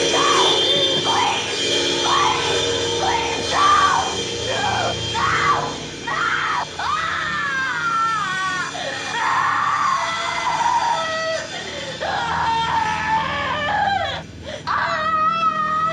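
A woman screaming in terror over and over, long high screams following one another with hardly a break, over a film score.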